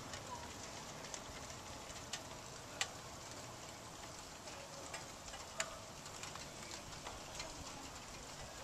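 Steady hiss of rain, with scattered sharp taps of drops striking surfaces close by. Two of the taps are louder, about three and five and a half seconds in.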